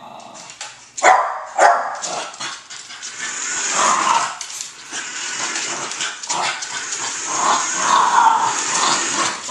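Small dog barking sharply twice about a second in, then growling and barking at a remote-control toy truck, over the steady high whir of the truck's electric motor as it drives about on a hardwood floor.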